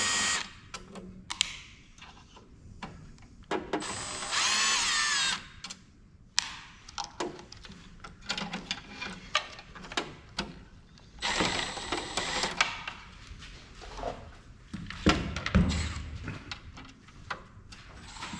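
A power drill spinning in short bursts, the longest about a second and a half, likely driving screws out of the printer casing, among repeated clicks and clatter of metal parts and screws being handled.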